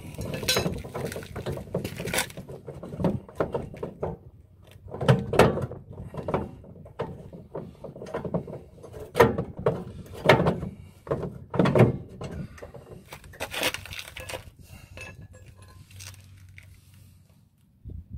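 Irregular metallic clanks and knocks of hand tools and metal parts being handled while a truck's flat tire is taken off, the sharpest about nine to twelve seconds in.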